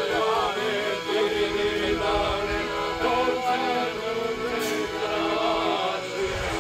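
Men singing a Serbian folk song, several voices carrying a wavering melody over a steady low tone.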